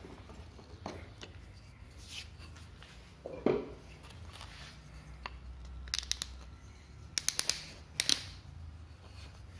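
Handling sounds at a wood lathe: scattered light knocks and clicks as a turned wooden handle is lifted off the lathe and handled. There is a louder knock about three and a half seconds in and a quick run of clicks near the end.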